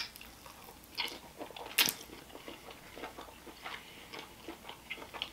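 Close-up mouth sounds of biting and chewing garlic-and-olive-oil green beans: a sharp click as the bite starts, then soft, wet chewing crackles, with one louder crunch about two seconds in.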